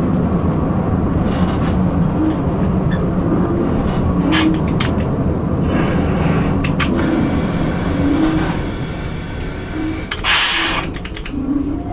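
Cab of an EP1 electric locomotive under way: a steady running rumble with short recurring tones and a couple of sharp clicks. A brief hiss about ten seconds in.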